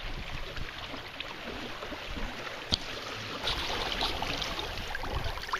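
Water rushing and splashing along the hull of a sailing canoe moving through choppy water, with a single sharp tick a little under three seconds in.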